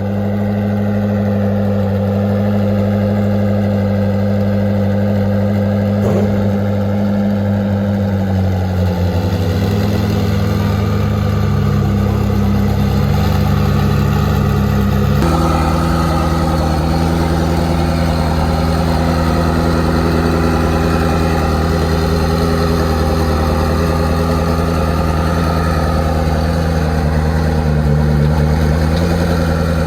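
Koenigsegg twin-turbo V8 engine idling steadily, its note stepping a little lower about nine seconds in and shifting again suddenly about halfway through.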